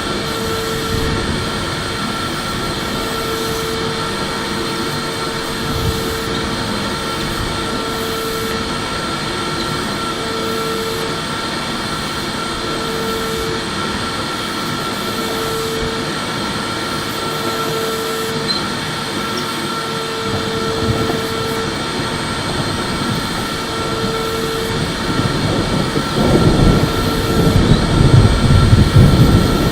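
Electric vacuum cleaner running steadily, its motor giving a constant noise with a thin high whine over it. Near the end it grows louder, with more low rumble.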